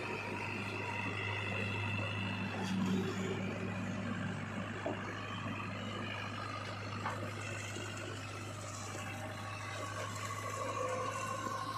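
JCB 3DX backhoe loader's diesel engine running steadily as the machine drives past.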